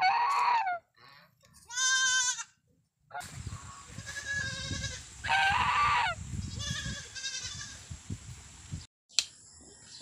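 Boer goat kid bleating about five times in short, quavering calls, the first two loud and the later ones fainter over a low rumble.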